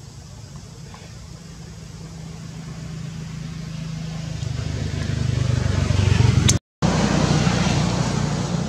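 A motor vehicle's engine and road noise growing steadily louder as it approaches, at its loudest about two-thirds of the way through, broken by a brief dropout, then slowly easing.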